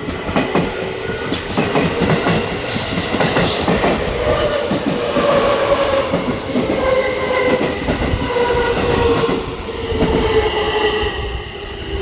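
Electric train slowing through the station, its motor whine gradually falling in pitch, with wheels clicking over rail joints and squealing. The sound starts suddenly.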